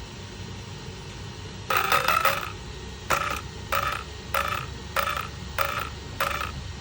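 Brushless motor and ESC of an Arrma Kraton V5 6S RC truck giving repeated short buzzing chirps instead of running smoothly: one longer chirp near the start, then short ones about every half second. It is a fault that the owner puts down to either the motor or the ESC.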